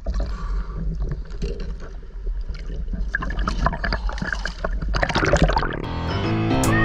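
Water sloshing and splashing against the side of a small boat, with wind rumbling on the microphone. Guitar music comes in near the end.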